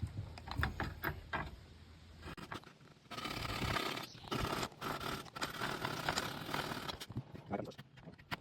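Coping saw making the back cut on a piece of crown molding: quick, scratchy strokes through the wood, sparse at first and becoming steady and continuous about three seconds in.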